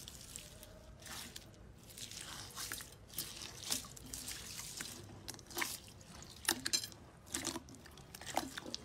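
Clear purple slime full of small beads being pressed and squeezed by hand: wet squelches, crackles of beads and sticky pops at an uneven pace, the sharpest pops in the second half.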